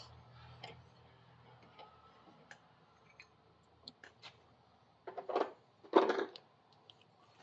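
Small metal clicks and handling of a valve spring compressor being backed off over a freshly fitted dual valve spring and retainer on a small-engine cylinder head, then two louder bursts of metal clatter about five and six seconds in, the second the louder.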